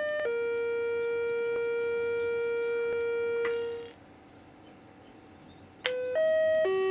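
Square-wave electronic tones from a homemade microcontroller sound-effect generator for model trains: a short higher note drops to a long steady note held for about three and a half seconds. After a pause of about two seconds, a quick run of notes steps up and down again, part of a repeating tune.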